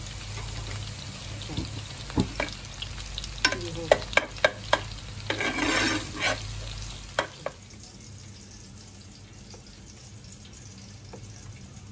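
Spoon stirring and scraping tomato sauce in a pan, with sharp clinks against the pan and a longer scrape about five to six seconds in. A low background hum drops away about seven seconds in.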